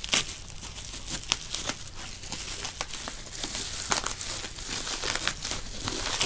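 Parcel packaging crinkling and crackling as hands pull and work at it to get it open, with irregular sharp crackles and a louder one right at the start.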